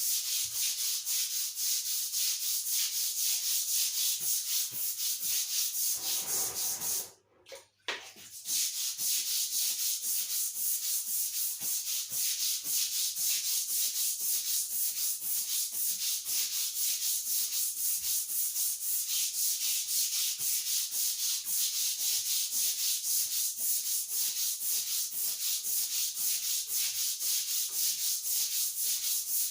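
A stiff scrub brush scrubbing a thick, carpet-like non-slip bathroom floor covering in fast, even back-and-forth strokes, with a short pause about seven seconds in.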